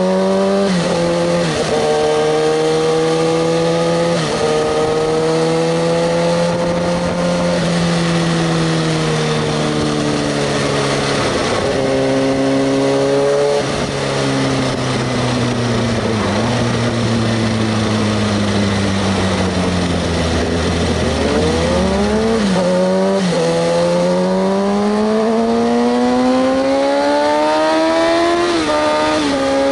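Kawasaki ZX-6R 636's inline-four engine riding under way. Its pitch climbs and drops sharply at several upshifts in the first half, then falls slowly for several seconds as the bike slows. From about three-quarters through it climbs again, with one more shift near the end.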